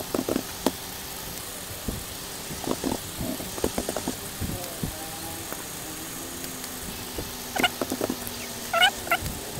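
Computer keyboard typing: irregular runs of key clicks. Near the end come a few short high-pitched squeaks, the loudest sounds here.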